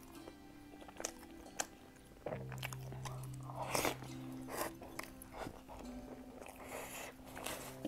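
Close-up biting into and chewing a sesame-topped baked pastry, with crunchy bites and wet chewing. The loudest bites come about four seconds in and again near the end.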